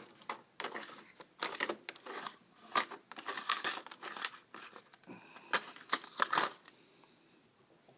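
Irregular crinkling and rustling handling noise as the solder is picked up, dying away about seven seconds in.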